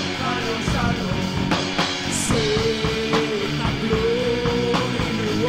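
Rock music with drums under a held, wavering melody line.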